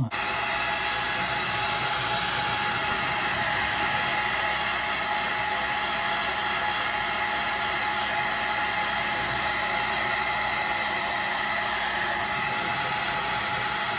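Handheld hair dryer switching on suddenly at the start and then blowing steadily: a constant rush of air with a faint steady whine.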